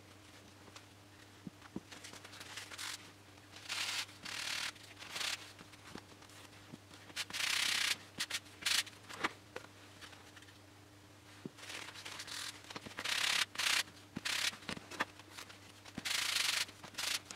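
About a dozen short bursts of scratchy rubbing and scraping, the longest under a second, as balsa tailplane parts are handled and worked by hand, over a faint steady hum.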